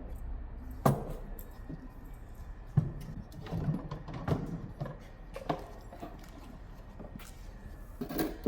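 Intermittent knocks and light clatter of tools and parts being handled, about seven separate short knocks spread out over a low steady background.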